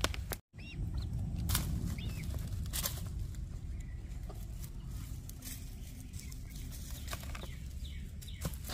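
Backyard hens foraging close by: scattered scratching and pecking clicks in dry twigs and leaf litter, with a few soft clucks, over a low rumble. The sound drops out completely for a moment about half a second in.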